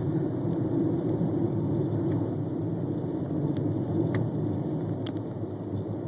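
Steady low rumble of a car heard from inside the cabin, its engine and tyres running on the road, with a few faint clicks.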